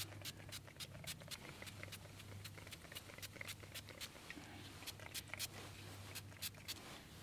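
A small pump spray bottle being sprayed over and over in quick short hisses, several a second at times, onto a cap and hands. A steady low hum runs underneath.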